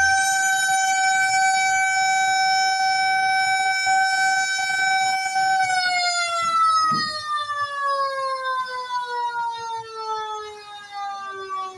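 Fire truck siren sounding one steady, high wailing tone, then, about six seconds in, slowly falling in pitch as it winds down.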